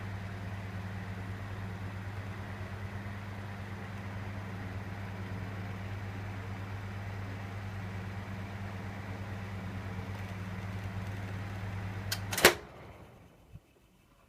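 Seibu Denko SF-25EL ventilation fan running with a steady motor hum and rush of air. About twelve seconds in, a sharp click and the fan cuts out, the sound dying away over about a second. A smaller click follows.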